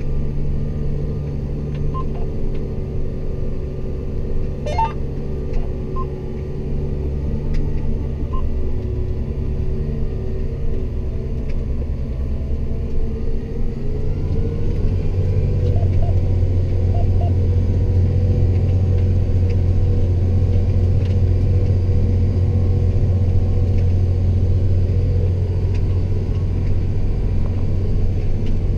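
Steady drone of a John Deere 8320R tractor's six-cylinder diesel engine heard from inside the cab, getting louder and a little higher about halfway through as the tractor works the field pulling a seedbed cultivator. A few short faint beeps sound in the first third.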